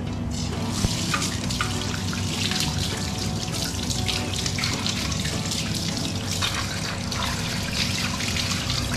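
Water running from a wall tap and splashing onto a rack of aluminium plating workpieces being rinsed under it, over a steady low hum.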